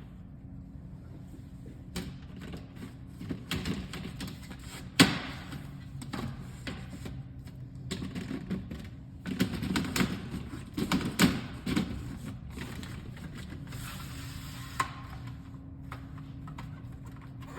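Irregular clicks, taps and knocks of objects being handled, with brief rubbing, over a steady low hum.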